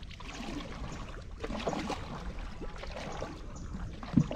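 Water splashing and trickling around a canoe as it is paddled, in an irregular run of small splashes, with one dull thump near the end.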